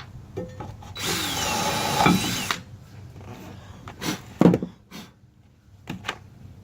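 Power drill running in one burst of about a second and a half, its pitch falling as it winds down, followed by several sharp knocks and clicks.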